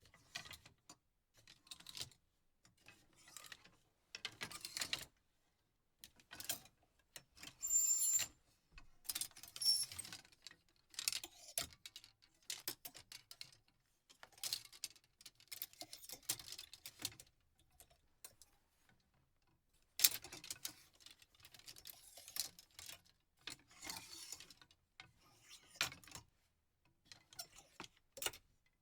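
Clothes hangers in a closet being moved, clicking and rattling in short irregular bursts. A few bursts carry a brief high metallic ring.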